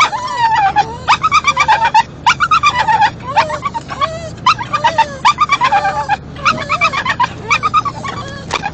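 Small dogs whining and yipping over and over in quick, high-pitched cries that rise and fall in pitch, excited on a car ride. A steady low engine hum of the moving car runs beneath.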